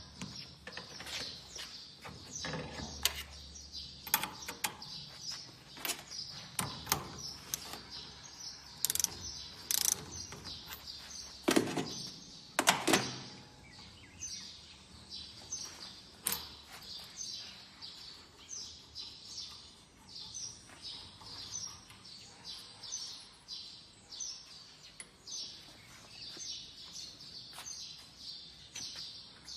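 Scattered clicks and knocks of a special nozzle cap-nut tool being handled and fitted on a Bosch piezo diesel injector, with two louder knocks near the middle. Birds chirp repeatedly in the background.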